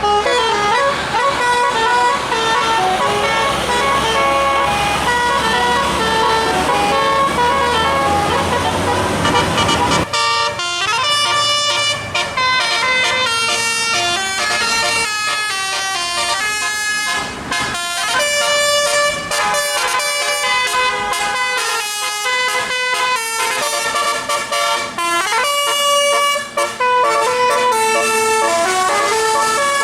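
A bus's telolet horn, a multi-note musical air horn, playing a quick tune of stepped notes. For the first ten seconds it sounds over engine rumble and traffic noise; after that the rumble drops away and the horn notes ring out clearly.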